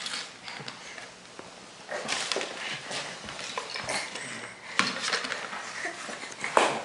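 Irregular scuffing, rustling and light knocks as a plastic child's bicycle helmet is pushed and shifted about on a rug, with a few sharper knocks in the second half.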